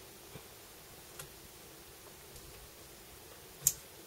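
A few light clicks from fingers handling a laptop LCD panel and the taped display connector on its back, with a sharper click near the end.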